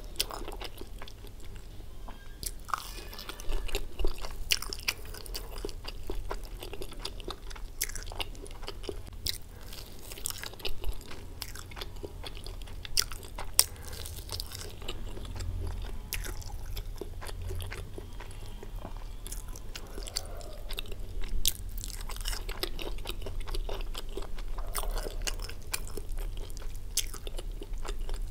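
Close-miked crunching bites and chewing of a fried, breaded cheese pizza stick, with many crisp crackles.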